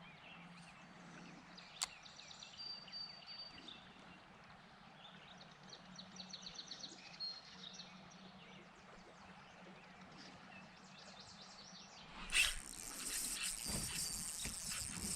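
Faint birdsong chirping over quiet outdoor ambience. About twelve seconds in, a sudden loud noise, then the fishing reel's drag runs steadily as a hooked smallmouth bass pulls line.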